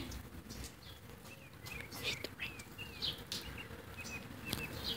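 Rain falling on a glass patio table and wet paving, with scattered drip clicks. From about two seconds in, a bird gives a run of short chirps.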